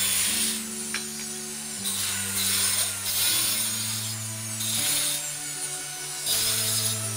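A metal hand tool scraping along a cement-rendered wall in repeated strokes, over background music with slow held notes.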